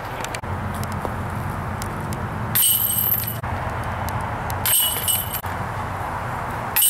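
Metal chains of a disc golf basket jingling in short bursts, about two seconds apart, the last one starting right at the end, over a steady low rumble.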